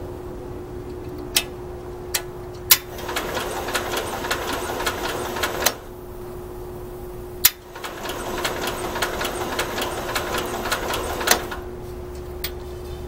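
Bolens 1050 tractor engine cranked over by its starter twice, about three seconds each time, with a sharp click as the starter kicks in and as it stops. The engine doesn't fire: there is power at the coil but no spark, which points to the ignition points.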